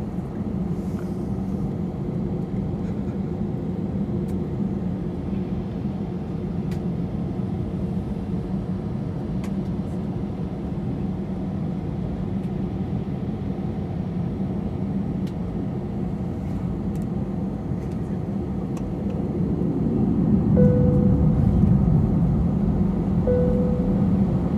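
Steady rumble of an airliner's jet engines and cabin air heard from inside the cabin, swelling louder about twenty seconds in, with two short high tones near the end.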